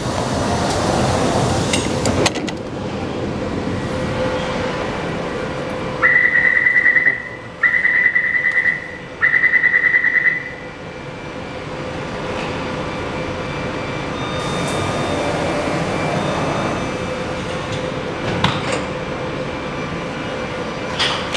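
Inside a Taipei Metro C341-type train car: a steady hum with one low constant tone. About six seconds in come three long, high electronic beeps in a row, typical of the door-closing warning.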